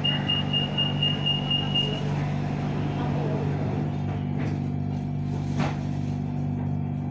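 BTS Skytrain door-closing warning: a rapid run of high beeps for about two seconds over the train's steady hum, then two sharp knocks a second apart as the train starts to pull out of the station.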